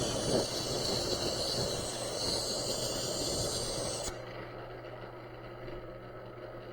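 Spray gun hissing as it sprays Cerakote ceramic coating onto a knife blade, cutting off suddenly about four seconds in, after which a faint steady hum remains.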